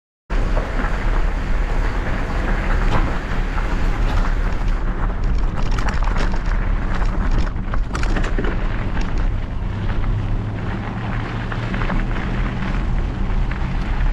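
Wind rushing over the microphone of a mountain bike's camera as the bike rolls along a gravel dirt trail, a heavy low rumble with tyre crunch. Clusters of sharp clicks and knocks in the middle as the bike rattles over rough ground.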